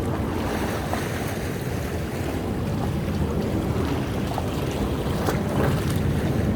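Sea waves washing against coastal rocks: a continuous rush of surf and sloshing water, with a few splashes late on. Wind rumbles on the microphone.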